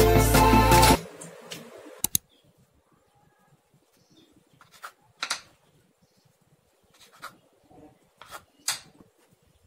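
Background music that cuts off about a second in, then a kitchen knife cutting through sliced bread on a wooden chopping board: a few faint, short cutting strokes and taps against the board.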